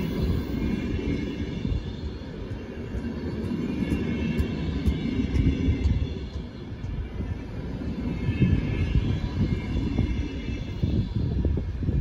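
A train running on the tracks, with a steady rumble of wheels on rail.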